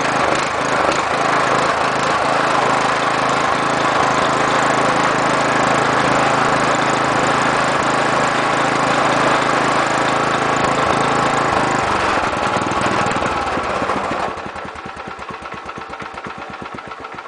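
Wisconsin Robin small engine running on a replacement carburetor, fast and steady at full throttle. About fourteen seconds in it drops to a slow idle with separate, regular firing beats.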